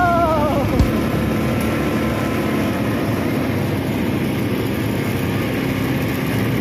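Steady engine and road noise of a small ATV ridden along a street at night. A brief falling tone dies away in the first second.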